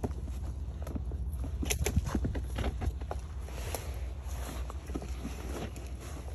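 Rustling, crackling and scattered knocks of people moving about in vegetation, over a steady low rumble.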